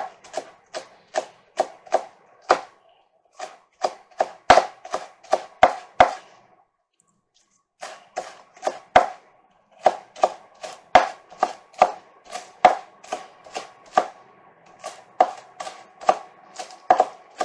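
Kitchen knife chopping a spring onion on a chopping board: a steady run of short, sharp chops, about three a second, with a pause of about a second just past the middle.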